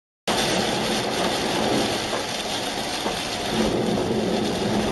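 Heavy rain on a car driving along a wet highway, with tyres hissing through standing water: a steady, dense wash of noise. It starts suddenly about a quarter of a second in, after a moment of silence.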